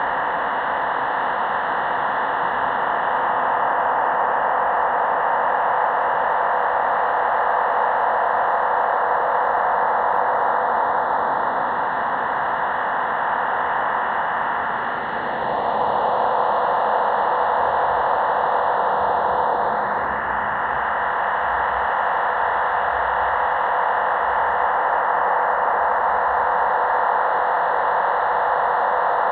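Shortwave receiver hiss in upper sideband mode, a steady band of static with faint whooshes sweeping through it about fifteen and twenty seconds in. The whooshing signal is of unknown origin.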